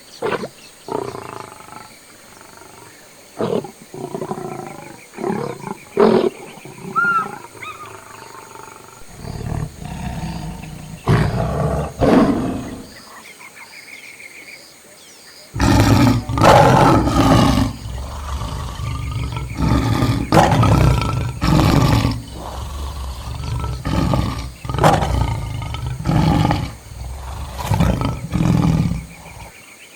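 Lions vocalising in a rapid series of short, rough calls, scattered at first, then heavier and almost continuous from about halfway through.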